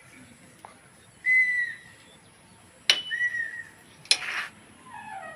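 Sharp metal clinks of hand tools on the bolts, twice, mixed with two short high whistle-like chirps about a second and a half apart; the first chirp is the loudest sound.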